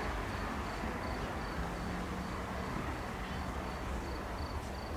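A cricket chirping steadily, about three short high chirps a second, over a low background rumble.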